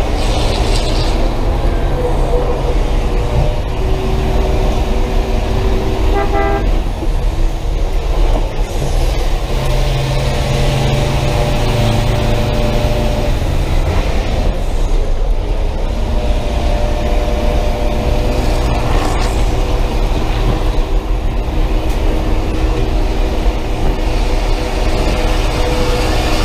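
Chevrolet school bus engine running hard, heard from inside the cab over heavy road and rattle noise, its note rising and falling as the bus is driven around the track. A brief horn-like toot about six seconds in.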